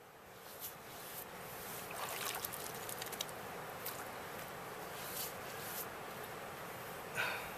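Hands dipping and splashing in shallow lake water at a rocky shore: a scatter of small splashes and drips over a steady rush of outdoor noise, with one louder splash or sound near the end.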